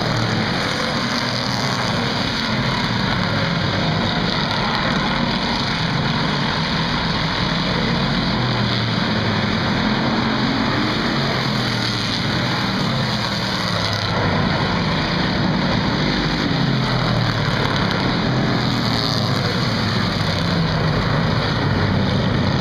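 A pack of stock cars racing around a short oval track, their engines running hard together. The engine note rises and falls as cars accelerate out of the turns and sweep past.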